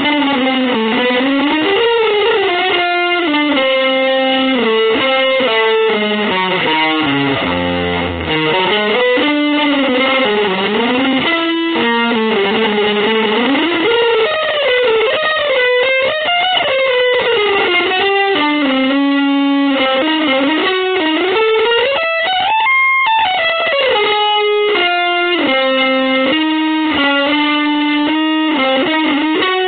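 Electric guitar playing a single improvised melodic line, its notes sliding up and down in long glides and stepping through quick runs of notes.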